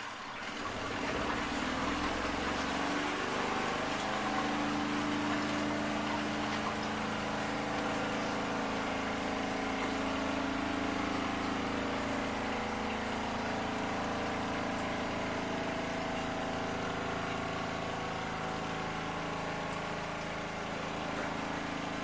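Spin-dryer tub of a Garatic portable twin-tub washing machine spinning a small load of wet clothes. Its motor starts about a second in, comes up to speed over the next few seconds, then runs as a steady hum.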